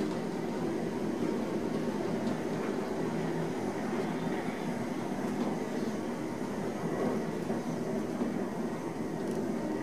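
Otis Autotronic traction elevator car travelling down the shaft: a steady rumble of the car in motion, even and unbroken throughout.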